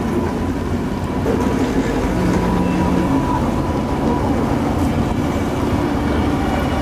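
Vintage electric tramcars rolling past close by on street rails: a steady rumble of wheels on track with a thin steady hum.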